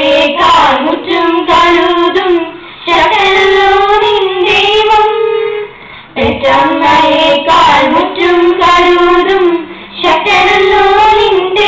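A girl singing solo into a microphone: the sung part of a kathaprasangam, Kerala's musical storytelling. She sings in long held phrases, breaking briefly about three, six and ten seconds in.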